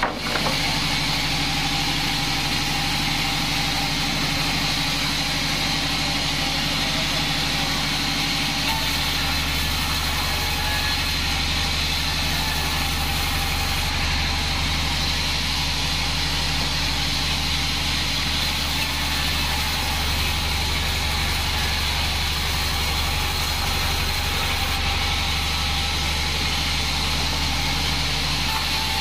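Vertical band sawmill running steadily, its blade cutting lengthwise through a log as the log is pushed through by hand. The machine hum stays even throughout.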